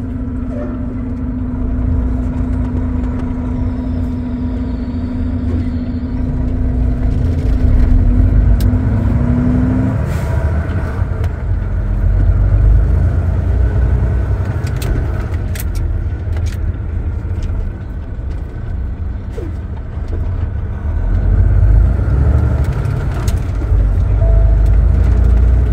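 Semi-truck engine heard from inside the cab as the truck pulls away and gathers speed, its low rumble swelling in surges about 8, 13 and 22 seconds in. A steady hum cuts out about ten seconds in.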